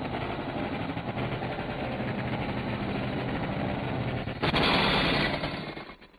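Steam locomotive running sound from an animation: a dense, rapid rattling chuff over a steady low hum. It gets louder about four and a half seconds in, then fades and cuts out just before the end.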